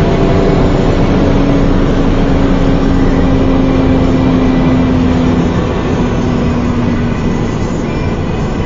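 Toyota Supra's twin-turbo 2JZ-GTE straight-six pulling at speed, heard from inside its cabin as a steady engine drone under loud wind and road noise. The sound eases a little after about five and a half seconds.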